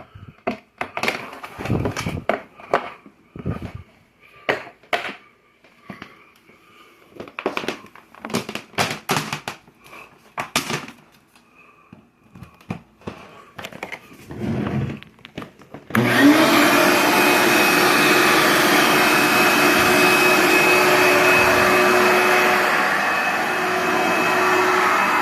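Scattered knocks and clicks for about sixteen seconds, then a 16-gallon, 6.5 hp Shop-Vac wet/dry vacuum switches on abruptly, its motor spinning up and settling into a steady loud run with a high whine.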